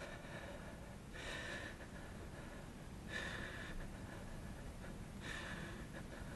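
A man breathing audibly, three breaths about two seconds apart.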